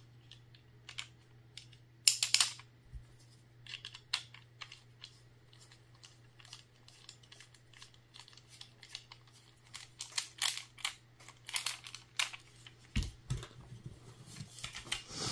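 Irregular small clicks, taps and scrapes of plastic and metal magazine parts being handled and fitted together, with a few soft knocks near the end. A steady low hum runs underneath.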